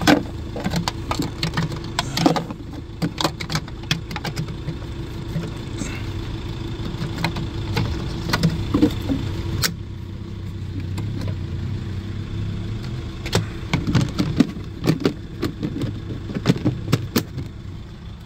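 Plastic covers and trim panels being handled and pushed back into place in a van's footwell and fuse box area: a run of irregular clicks and knocks. Under them, the steady hum of the Iveco Daily's engine idling.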